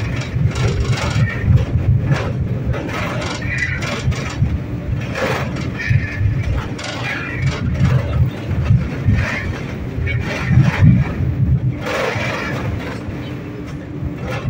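A 71-911E "City Star" tram running along the track: a steady low rumble with irregular clicks and rattles throughout.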